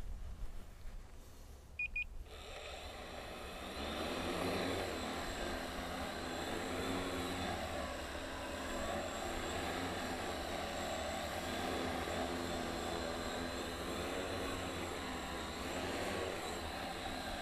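A knock, then two short beeps, then a quadcopter's electric motors and large slow-turning propellers spool up about two seconds in, swelling over a couple of seconds into a steady whirring as it lifts off and hovers close by.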